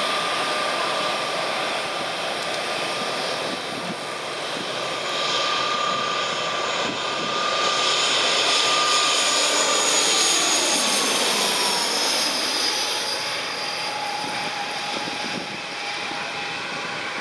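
ATR twin-turboprop airliner on final approach, passing low and close: engine rush with a whine over it. The sound grows loudest about eight to ten seconds in, then the whine drops in pitch as the plane goes by.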